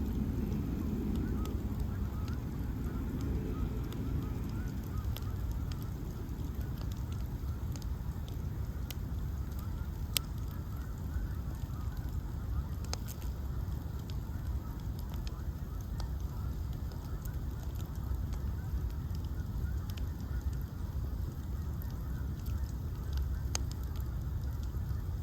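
Ash-log bonfire burning, with scattered sharp crackles and pops over a steady low rush of flames. The loudest pop comes about ten seconds in.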